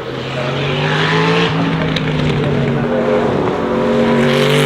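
Sauber Mercedes C9's turbocharged 5.0-litre V8 accelerating hard under full throttle, getting louder as it approaches. The engine note climbs and drops back twice as it shifts up through the gears.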